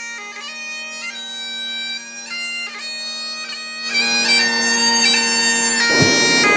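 Great Highland bagpipes playing a tune: a steady drone under a stepping chanter melody, growing louder about four seconds in.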